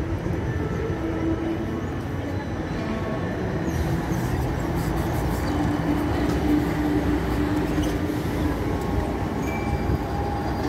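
Street traffic at a tram and bus junction: trams and articulated buses rolling past over the track crossings. An articulated trolleybus passing close by gives a steady hum through the middle.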